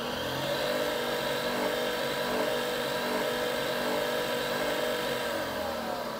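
Nespresso Vertuo Next coffee machine's motor spinning the capsule: a steady whir that rises in pitch as it spins up and winds down near the end. It is a failed brew attempt, and the machine does not go on to make coffee.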